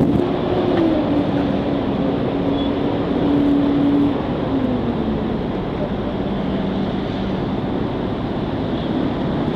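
Motor vehicle engine running with traffic noise; its pitch drops about four and a half seconds in and then holds steady.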